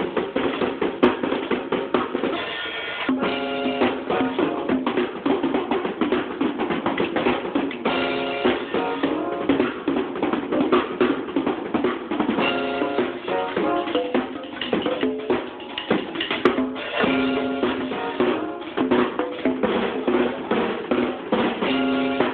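Drum kit played fast and busy, with kick, snare and rimshots, over a recorded gospel song with held keyboard-like notes.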